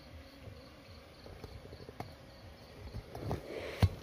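Faint, regular chirping of crickets, a few pulses a second, under a low background hum. Near the end come several knocks and one loud thump.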